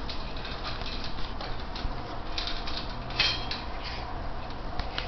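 A dog eating dry kibble from a bowl: a run of small irregular crunches and clicks, with a few sharper clinks about two and a half, three and five seconds in.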